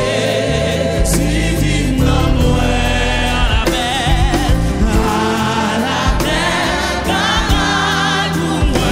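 Gospel song sung in Haitian Creole: a woman sings lead with a wavering vibrato, backed by other voices, over a band with electric bass.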